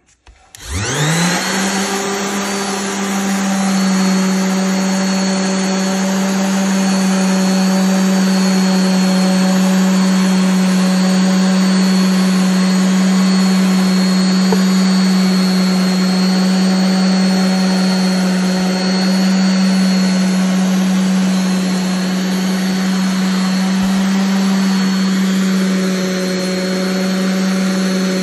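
Electric random orbital sander switched on about half a second in, its pitch rising quickly as it spins up, then running at a steady hum while sanding a cured epoxy resin and oak tabletop with 2000-grit paper.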